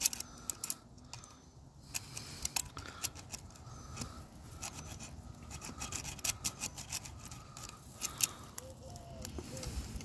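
A multitool's metal file scraping irregularly against the electrical contacts of a well pump's pressure switch, with small sharp clicks among the strokes. The contacts are being filed clean because a bad contact kept the switch from closing and starting the pump.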